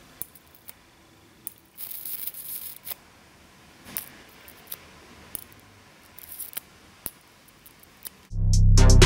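High voltage from a small potted step-up module arcing across the gap between its two output leads: irregular sharp snaps, about ten in all, with two short stretches of hissing arc, one about two seconds in and a shorter one past six seconds.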